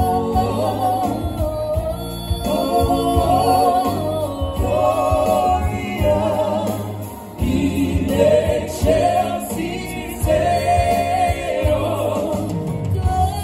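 Music: voices singing a song over instrumental backing with a steady bass line, easing briefly a little past halfway before coming back in.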